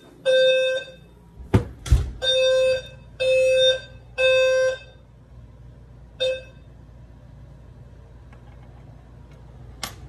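Fire alarm sounding in long steady-pitched beeps, one beep and then three about a second apart, then stopping after a short last beep about six seconds in as the system is silenced. The system is in alarm from the garage bay photoelectric smoke detector, set off with smoke spray. Two sharp knocks come between the first beep and the three.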